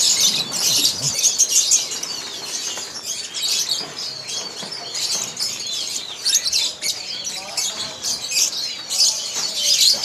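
A flock of caged lovebirds chattering: many short, high, overlapping chirps and squeaks, busiest in the first couple of seconds and again near the end.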